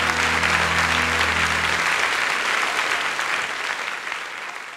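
Studio audience applauding over a held closing chord of music. The chord stops about two seconds in, and the applause fades out toward the end.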